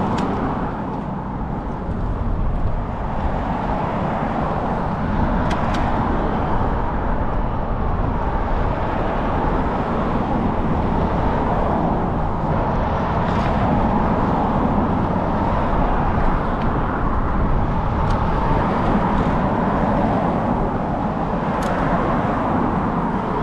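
Steady rushing road and traffic noise heard from a moving bicycle on city streets.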